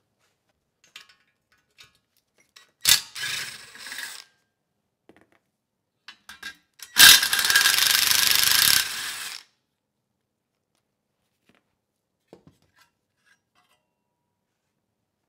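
Cordless power driver with a socket extension spinning bolts out of a small engine's sheet-metal cooling shroud: a short run about three seconds in, then a steady run of about two and a half seconds near the middle. A few light knocks come between the runs.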